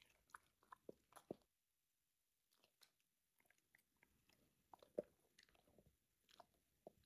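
A golden retriever chewing a piece of carrot: faint, sharp crunches and clicks of its teeth, a few together, then a pause, then a few more.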